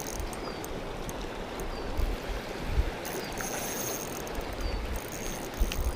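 River water rushing steadily over rocks, with a few low wind rumbles on the microphone.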